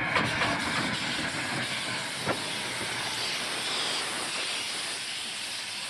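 Narrow-gauge steam locomotive blowing off steam at close range: a steady loud hiss, with a few sharp metallic knocks near the start and one about two seconds in.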